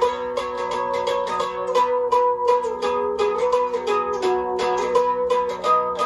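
Dulcimer played on a vinyl record: a quick run of picked notes over steady ringing drone tones, with no singing.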